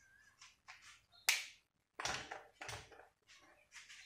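Whiteboard marker writing on a whiteboard: a run of short scratchy strokes, the loudest about a second in.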